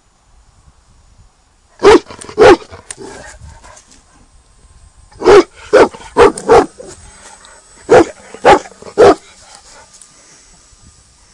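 A dog barking in three bouts: two barks, then four quick barks, then three more.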